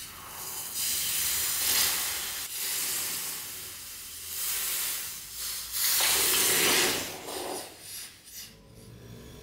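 Hot brass powder box, just silver-soldered with a torch, hissing and sizzling as it is quenched in a bucket of water, in several surges that die away near the end.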